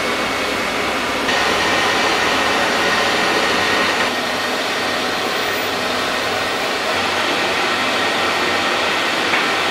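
Gas torch flames for bending neon glass tubing, a steady rushing roar whose level steps up and down a few times.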